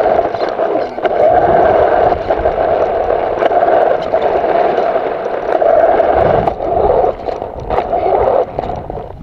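Radio-controlled car driving over gravel, its drivetrain and tyres heard from the onboard camera, easing off and picking up again several times.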